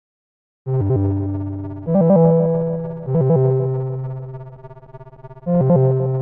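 Phone alarm melody played on a synthesizer with an electric-piano tone: slow held chords, four struck in turn, each fading before the next, after a short silence at the start.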